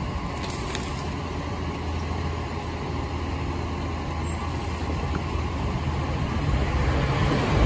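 Rear-loader garbage compactor truck's engine idling steadily, growing louder near the end.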